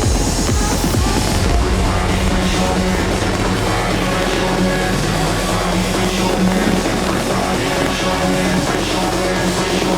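Loud electronic dance music with a driving beat and a held bass line, distorted and guitar-like in texture.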